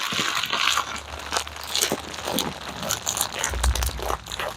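Packaging on a new folding table being crinkled and torn open, a run of close crackling and tearing noises, with a dull low thump about three and a half seconds in.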